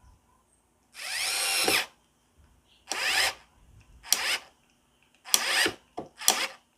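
Worx WX240 4V cordless mini screwdriver driving a 1.5-inch screw into wood with no pilot hole. The motor runs for nearly a second, then in several short stop-start bursts. It struggles to sink the screw because its torque is too low.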